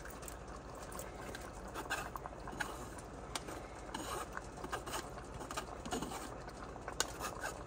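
Cooked rigatoni being pushed off a mesh strainer with a wooden spatula and dropping into a pot of tomato cream sauce: a string of soft, irregular pats and taps.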